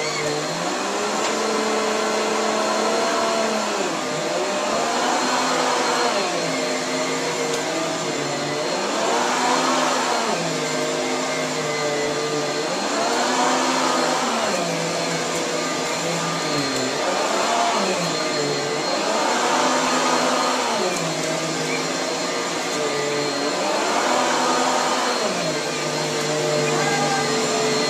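Vacuum cleaner running, its motor pitch sagging and climbing back again every three to four seconds, over and over.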